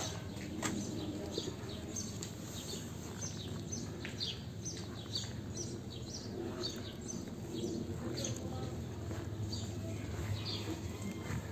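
Small birds chirping busily: many short, high, falling chirps, several each second, over a steady low background murmur.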